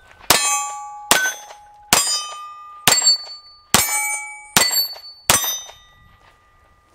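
Seven pistol shots from a Walther PPQ SC subcompact, a little under a second apart, each followed by the ringing clang of a steel target plate being hit, the plates ringing at different pitches.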